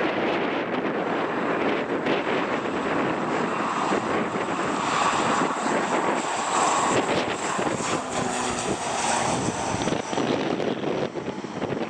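ATR 72 twin-turboprop airliner at take-off power on its take-off roll and lifting off, a steady propeller drone with a high turbine whine that is strongest about halfway through as it passes.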